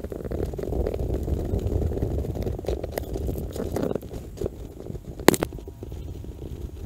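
Rustling and low rumbling of climbing rope and gear rubbing against a head-mounted camera's microphone as a tree climber comes down on his rope, with scattered small clicks of hardware and one sharp knock about five seconds in.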